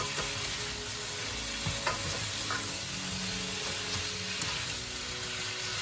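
Stir-fry of chicken and vegetables sizzling in a non-stick wok with a steady hiss, stirred with a slotted spatula that scrapes and knocks against the pan a few times.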